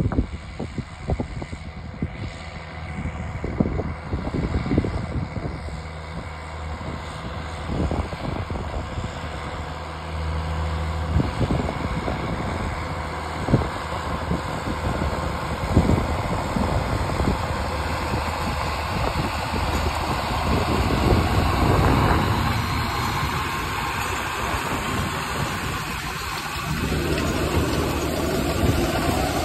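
Case IH Magnum 305 tractor's diesel engine running steadily under load, pulling a planter. It grows louder as the tractor draws near and passes close, loudest about twenty seconds in.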